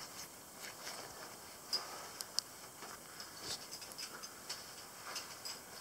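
Faint, scattered small clicks and handling sounds from a flashlight being turned over and checked in the hands after a 50-foot fall.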